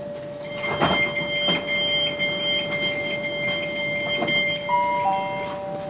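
Inside a Great Western Railway Class 387 electric multiple unit: a steady electrical whine with higher steady tones above it and a few knocks. Near the end a falling two-note chime sounds, the signal for an on-board announcement.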